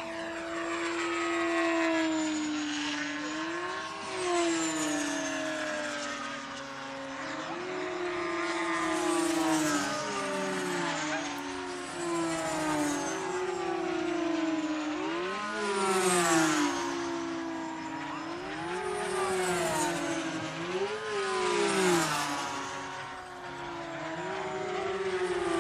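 Three F5D electric pylon-racing model planes at full speed, their motors and propellers making a steady whine. The pitch swoops up and then down again and again as each plane passes, with the planes' tones overlapping.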